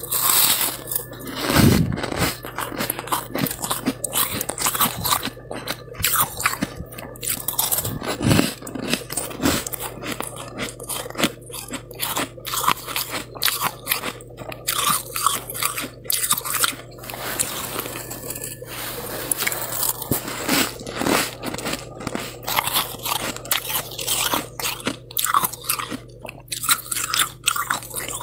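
Freezer frost being crunched and chewed close to the microphone: a steady run of crisp, granular crunches, with two heavier bites about two seconds in and about eight seconds in.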